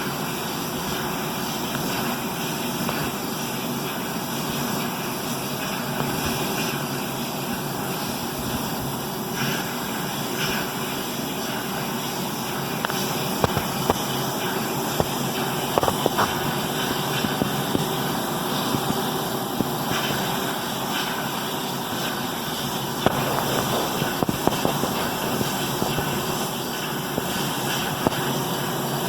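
Unidentified steady droning noise with a constant low hum, heard at night, with scattered sharp clicks or pops through the second half.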